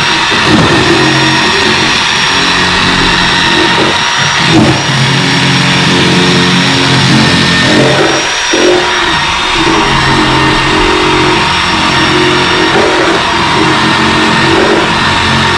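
A power tool running continuously as it cuts into the boat's transom, its pitch shifting as it bites under load; it eases briefly about eight seconds in, then picks up again.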